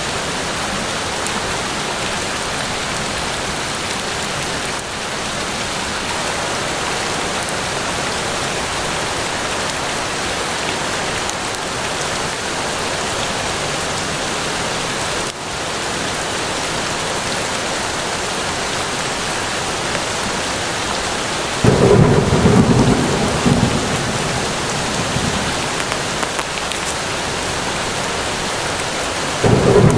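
Steady rain falling in a forest. About two-thirds of the way through, a loud roll of thunder breaks in suddenly and rumbles away over several seconds, and another begins right at the end.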